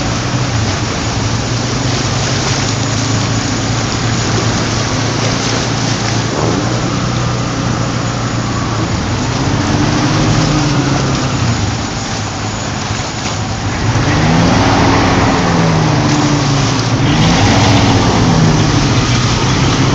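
Vehicle engine running while driving through deep floodwater, with a steady rush and splash of water. In the second half the engine notes rise and fall several times.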